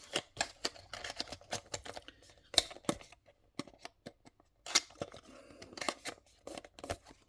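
Irregular sharp clicks and taps of a small diecast model car and its plastic packaging being handled, with a short lull in the middle.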